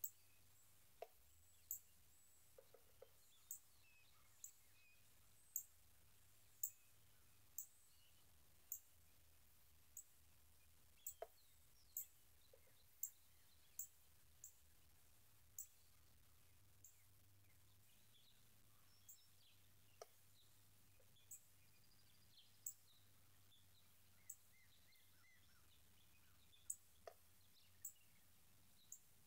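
Near silence outdoors: faint scattered bird chirps, with short, sharp high-pitched ticks about once a second and a few soft taps.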